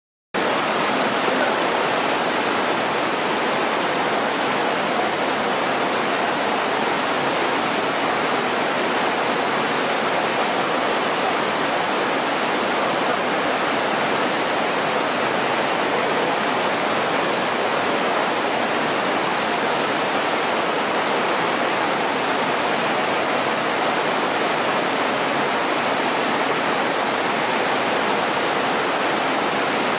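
Heavy rain pouring down, a steady, even hiss that does not change.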